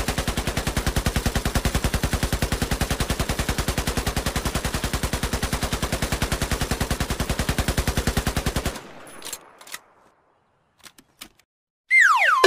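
Rapid, evenly spaced machine-gun fire, about nine seconds long, that cuts off suddenly and is followed by a few faint clicks. Near the end a whistle slides quickly down in pitch.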